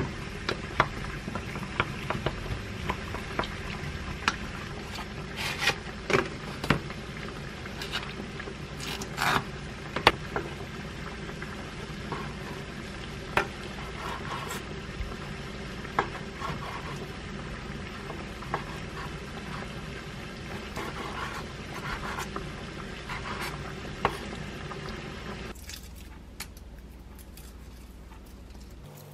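Food-prep sounds over a steady low hum: a wooden spoon stirring sauce in a glass mug, knocking sharply against the glass, then a knife slicing raw salmon on a wooden cutting board. Near the end, quieter, the shell is peeled off a freshly boiled egg.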